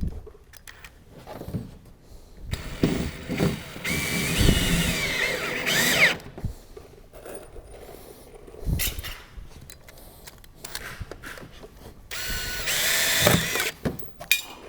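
Handheld power drill running in two bursts, a long one of about three and a half seconds and a shorter one of about a second and a half near the end, its pitch shifting as it works. A few short knocks come between them.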